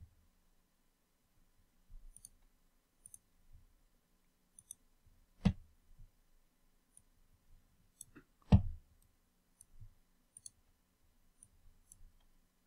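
Computer mouse clicking: a dozen or so light, scattered clicks, with two louder knocks about five and a half and eight and a half seconds in.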